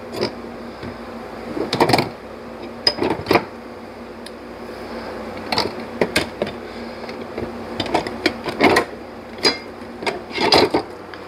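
Hand tools clinking and clattering while being rummaged through, about a dozen short metallic knocks at irregular intervals.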